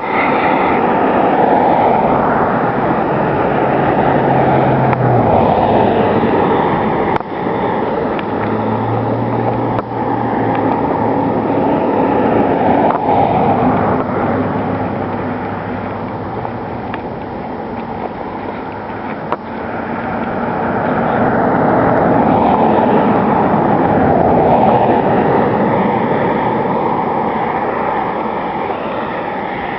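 Steady vehicle road noise with a low engine hum that shifts in pitch a few times.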